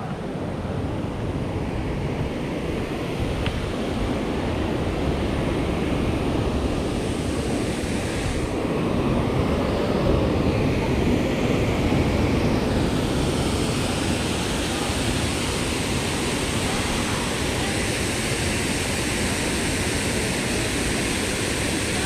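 Steady rush of water falling down a creek waterfall, growing a little louder and brighter about halfway through.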